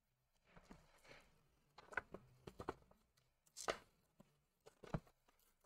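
Faint handling of thin masking paper by hand: a soft rustle, then a few short crinkles and clicks, the sharpest about three and a half seconds in.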